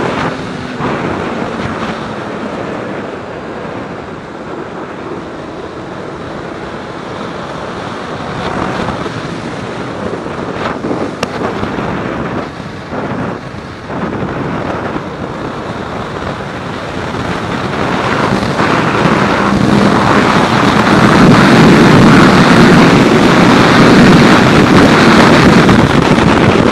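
Wind rushing over the microphone of a camera on a moving Yamaha Thundercat sport bike, with the bike's inline-four engine running underneath. The rush grows louder about two-thirds of the way in and stays loud to the end.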